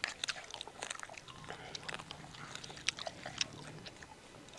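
People chewing and biting into fire-roasted chicken: irregular small wet clicks and smacks of mouths and tearing meat.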